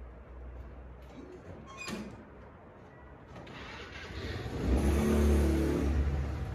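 A motor vehicle passing close by. Its engine and road noise build from about three seconds in, peak, and begin to fade near the end.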